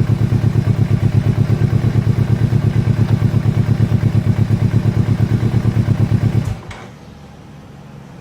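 Kawasaki Ninja 250R parallel-twin idling through an Akrapovic carbon slip-on exhaust with no dB killer: a loud, steady, evenly pulsing exhaust note that stops abruptly about six and a half seconds in.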